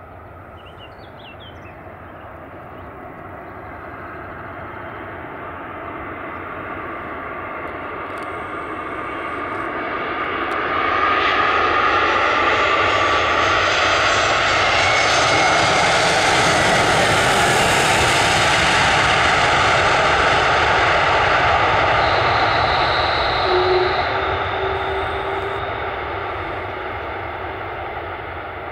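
Airbus A321-231 airliner's two IAE V2500 turbofan engines landing: a jet whine and rush that builds steadily as it approaches. It is loudest for about ten seconds as the plane lands and passes close, then fades as it rolls out down the runway.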